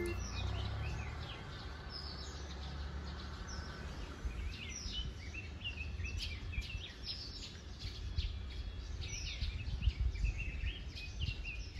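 Small birds chirping, many short quick calls overlapping throughout, over a steady low rumble.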